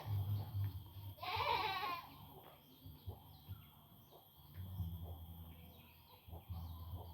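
A goat bleats once, a quavering call about a second in. Faint bird chirps follow, over a low rumble that comes and goes.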